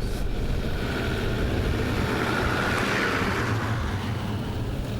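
A motor vehicle driving: its engine runs steadily under a hiss of road noise that swells around the middle and fades again.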